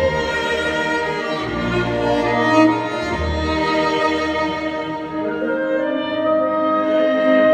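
Orchestra with a solo violin playing sustained melody notes over held string chords and a bass line whose notes change every second or so.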